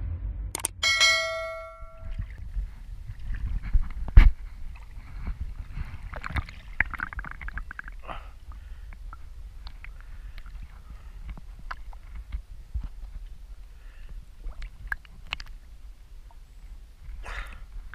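A ringing notification-bell chime about a second in. Then shallow sea water lapping and splashing against a camera held at the water's surface, with a low rumble, small clicks and one sharp knock about four seconds in.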